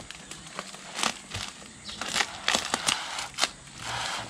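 A plastic-wrapped parcel being cut open with scissors: the plastic wrap crinkles under the sharp snips and clicks, with a longer rustle near the end.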